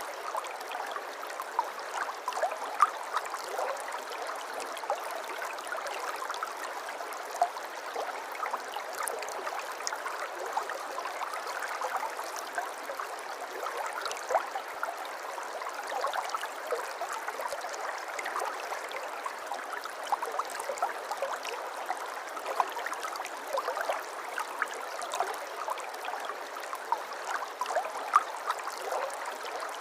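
River water flowing steadily, a constant rush dotted with many small splashes and gurgles.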